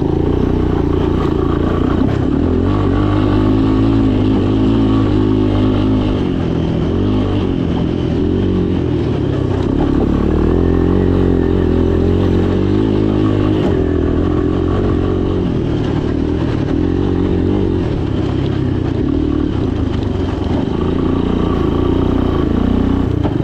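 Three-wheeler ATV engine running under load, its revs rising and falling as it is ridden.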